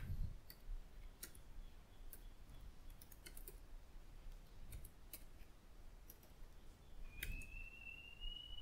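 Faint, scattered clicks of computer keyboard keys being typed one at a time, at an irregular pace. Near the end a faint, steady high tone comes in, rising slightly in pitch.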